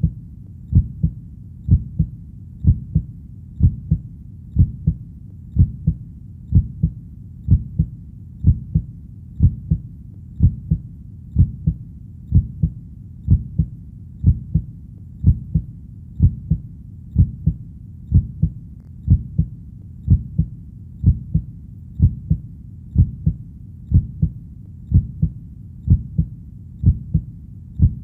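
Steady, even heartbeat: a low double thud (lub-dub) about once a second, with a faint low rumble between beats.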